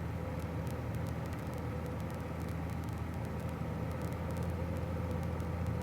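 Steady drone of a 1966 Cessna 172G's engine and propeller in flight, even and unchanging, with faint scattered clicks.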